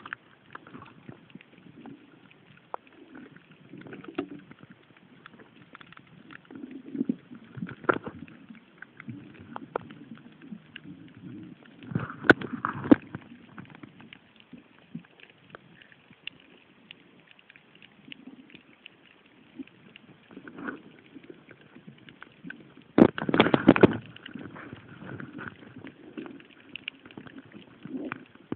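Muffled water noise around a camera held underwater while snorkelling, with scattered clicks and knocks and two louder surges, about twelve seconds in and about twenty-three seconds in.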